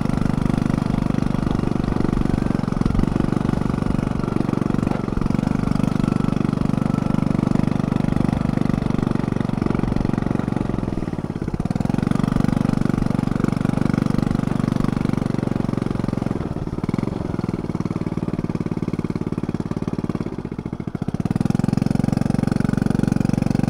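Small step-through motorcycle's engine running under way, riding along a dirt farm track. The revs drop and pick up again a few times, most clearly about halfway through and again near the end.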